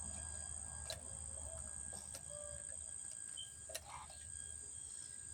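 Steady high-pitched chirring of insects in the background, with a few light clicks of small parts being handled.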